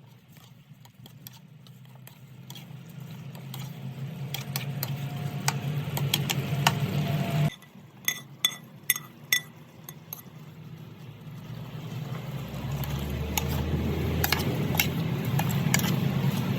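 Kitchen cooking sounds: metal utensils stirring and clinking against pots and dishes, with several sharp ringing clinks about halfway through, over a steady low hum.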